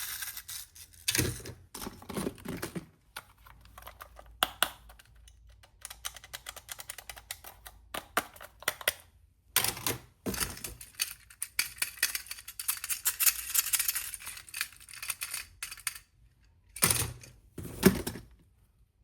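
Small plastic toy pieces being handled: irregular clicks, taps and rustling in clusters, with a couple of louder knocks near the end.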